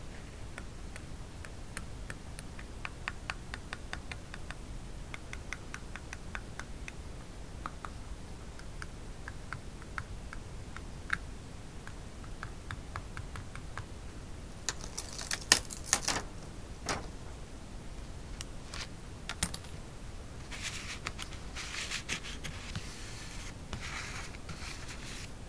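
A slim metal tool and long fingernails tapping and ticking on paper as small gold stickers are set onto a scrapbook page: many light quick ticks, then a few sharper taps past the middle. Near the end comes soft paper rustling as a thin paper cutout is laid down and handled.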